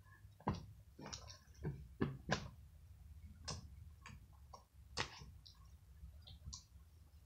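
Slime being squished and kneaded by hand, giving irregular sticky clicks and small pops.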